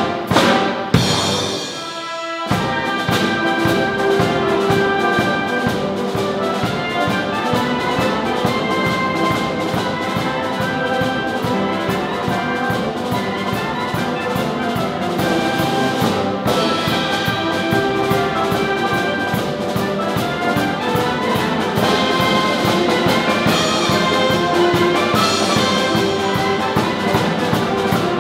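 Military concert band playing, with clarinets, brass and a drum kit, and the drummer keeping a steady beat. The band stops for a moment about two seconds in, then comes back in and plays on.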